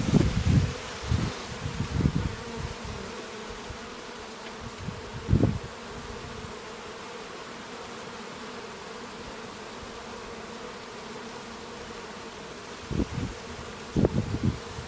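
Honeybees buzzing at a hive in a steady hum, with louder swells near the start, about five seconds in, and again near the end.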